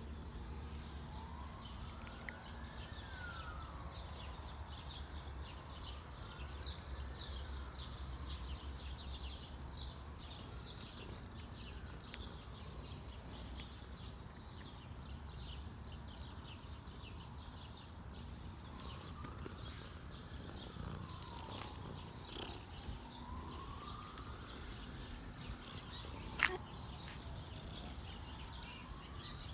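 Ginger-and-white cat purring while being stroked, a low steady rumble. Behind it run dense high chirping and a faint tone that rises and falls every few seconds, and a sharp click comes near the end.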